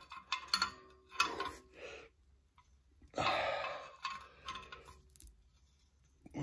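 Clicks and short scraping creaks from a wrench turning the nut on a homemade liner puller's threaded rod. The puller is jacking a seized cylinder liner up out of the engine block, which it has just begun to lift.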